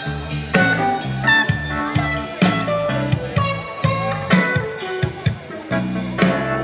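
Live band playing an instrumental passage: an electric guitar melody over bass, drum kit and keyboard, with a steady drum beat.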